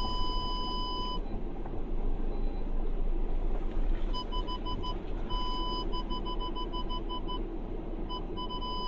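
Car's parking-sensor warning beeping inside the cabin over the low rumble of the engine and tyres on a rough track: a steady tone for about the first second, then spurts of quick beeps, about six a second, with one longer tone between them.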